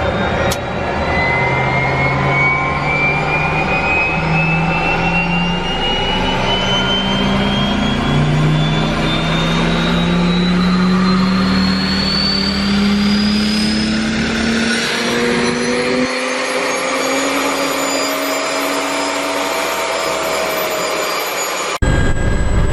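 Gazelle helicopter's Turbomeca Astazou turboshaft spooling up, heard from inside the cockpit: a high turbine whine climbs steadily in pitch, with lower tones rising along with it. Near the end it gives way suddenly to a louder, steady engine and rotor noise as the helicopter lifts off.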